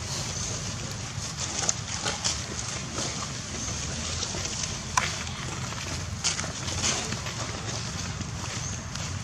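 Dry leaf litter crackling and rustling in short irregular clicks as macaques walk over it, the sharpest crackle about five seconds in, over a steady low outdoor rumble.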